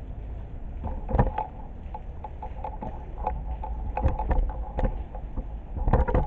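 Outdoor railway-platform ambience: a steady low wind rumble on the microphone with scattered sharp taps and a faint two-note tone.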